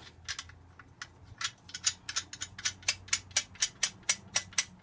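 Quick, even metal clicks as an exhaust header's flange nuts are run onto the cylinder-head studs, left loose for now, speeding up to about four clicks a second in the second half.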